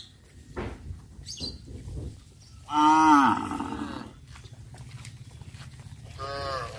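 Cow mooing twice: a loud moo that rises and then falls in pitch, about three seconds in, and a shorter, fainter moo near the end, with a few small knocks in between.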